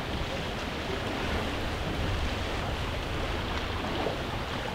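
Steady rushing noise of wind and waves along a rocky shore, with a low rumble of wind buffeting the microphone.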